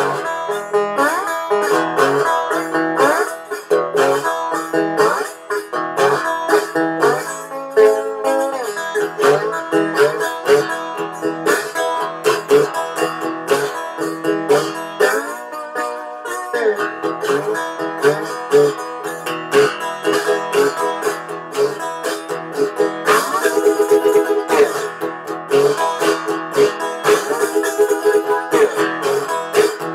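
A metal-bodied resonator guitar played solo, plucked notes with pitches sliding up and down now and then.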